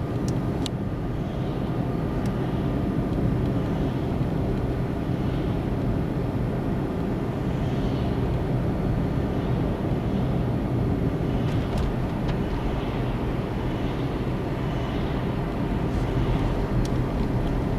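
Cabin noise inside a car with a 2.0 petrol engine cruising at about 40 km/h in third gear at 2000 rpm: a steady low engine hum with road noise.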